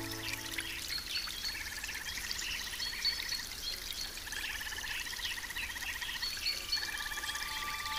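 A nature-sound recording of animal calls: three long, rapid pulsed trills over a steady hiss, with scattered short higher chirps. Background music fades out in the first second.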